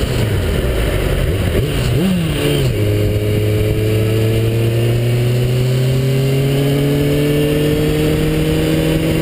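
Kawasaki ZX6R's inline-four engine running under way at mid revs, with wind rush over the bike. About two seconds in the engine note rises and drops quickly, then it settles into a steady note that climbs slowly as the bike gently accelerates.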